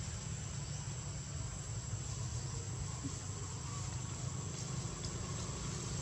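Insects droning steadily in a high, even tone, over a low, steady background rumble.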